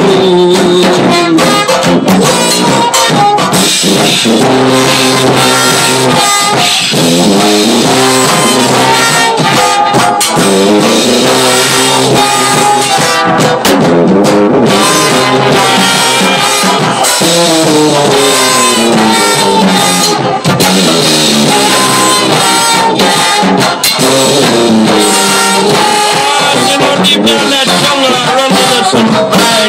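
Live band playing with trumpet, trombone, tuba, drum kit and banjo, the brass carrying the tune over a steady beat, with no singing.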